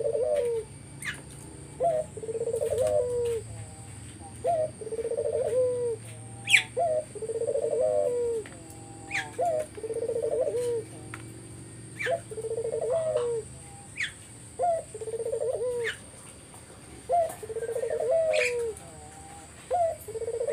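A puter (Barbary dove) cooing over and over in a steady run of rolling, low coo phrases, each about a second long and coming every second or two. Short sharp higher chirps fall between the coos.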